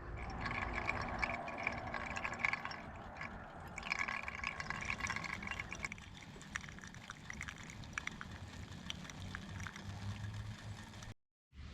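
GSI stovetop espresso maker brewing: hot water gurgling and sputtering up through the coffee grounds and out into the cup. The sound is strongest for about six seconds, then thins to softer scattered pops and drips, and breaks off just before the end.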